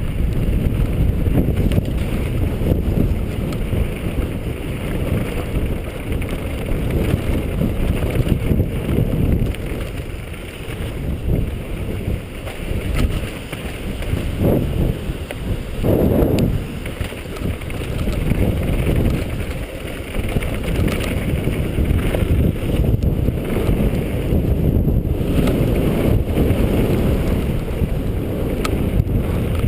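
Strong wind buffeting the microphone in a steady, gusting low rumble, mixed with the rolling noise of a downhill mountain bike on a dirt trail.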